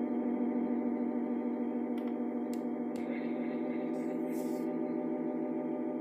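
Sustained ambient synthesizer drone: a steady chord held from a keyboard through an effects unit. A few sharp clicks about two to three seconds in and a brief hiss a little later, as the buttons on the effects unit are worked.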